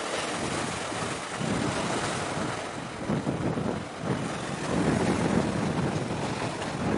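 Wind buffeting the microphone in irregular gusts over a steady rush of sea.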